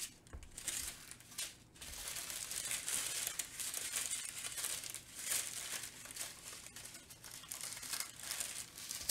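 Plastic packaging, most likely the small bags of diamond-painting drills, crinkling loudly as it is handled right next to the microphone: a few short rustles, then a steady crinkle from about two seconds in.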